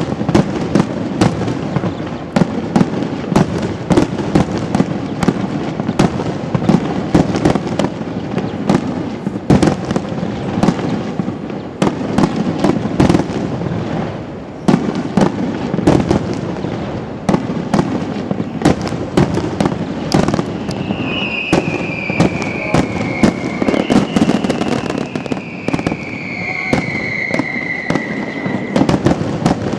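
Fireworks display: a rapid, continuous volley of bangs and crackling shells, with two whistles falling in pitch in the last third.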